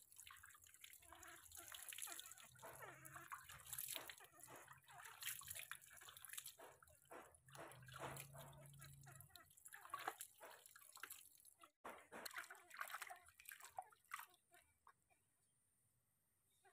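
Faint water dripping and splashing as handfuls of water are poured over a baby monkey during its bath, running off into a plastic basin and onto the ground. The splashing dies away near the end.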